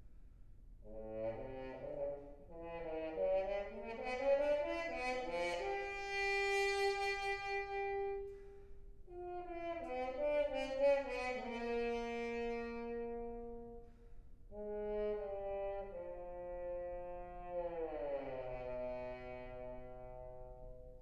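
Solo trombone playing in a hall. It slides upward into a long held note, then plays a run of falling notes and ends with a slow downward glide into a lower held note.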